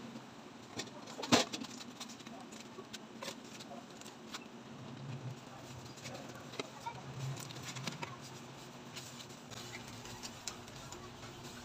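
Faint sounds of a pot of water and vegetables heating on a gas burner, with a low steady hum and scattered small ticks. One sharp clink about a second in is the loudest sound.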